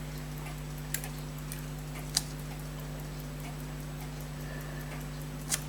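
Elgin pocket watch movement ticking steadily and fast, about five ticks a second, with a few sharper clicks over a steady low hum.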